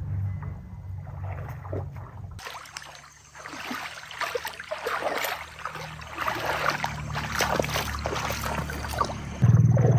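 Water splashing and sloshing in a shallow pond as hands wade and grope through it, with a low steady hum underneath; the hum gets suddenly louder near the end.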